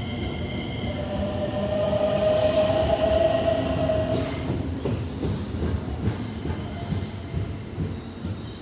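JR West Kansai Airport Rapid electric train pulling out of the platform. Its motors give a whine that rises slightly in pitch as it speeds up, over a rumble and clatter of wheels on rail. It is loudest about three seconds in, then fades as the train moves away.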